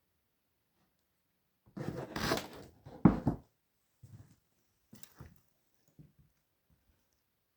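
Rustling and scraping that ends in one sharp, heavy knock, followed by four or five fainter knocks over the next few seconds.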